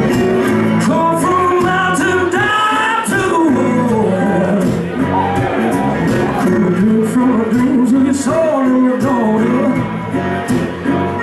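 Live acoustic blues-rock band playing: a male lead vocal sings over strummed acoustic guitar, resonator guitar, bass and percussion keeping a steady beat.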